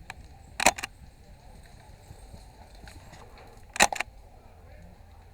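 Airsoft rifle shots: two sharp clacks about three seconds apart, each a quick double or triple click.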